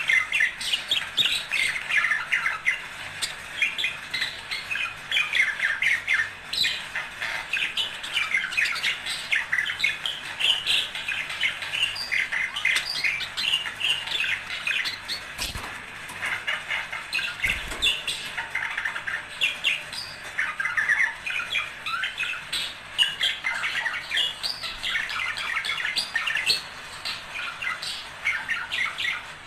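A pair of budgerigars chattering and warbling without pause: fast, short chirps mixed with harsh squawks. This is the courtship chatter of budgies, the kind of song played to set other budgies singing and breeding.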